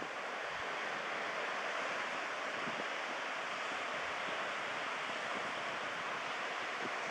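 Steady wash of ocean surf, an even rushing noise that holds level throughout.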